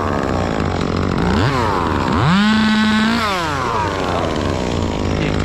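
Chainsaw engine revved: a quick blip about a second and a half in, then opened up to full throttle and held for about a second before dropping back to idle, over a steady low engine hum.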